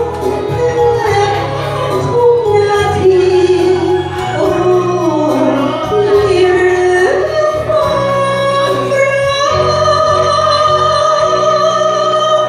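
A woman singing into a microphone through a PA loudspeaker over a backing track with a steady beat and bass. Her voice slides between notes and holds a long note near the end.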